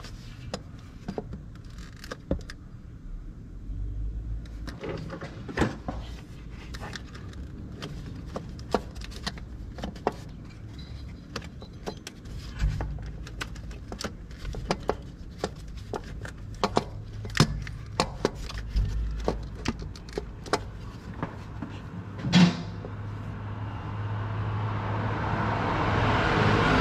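Hand tools working on car parts: scattered metallic clicks and knocks over a low hum, with one louder knock about 22 seconds in. Near the end a rushing noise swells up.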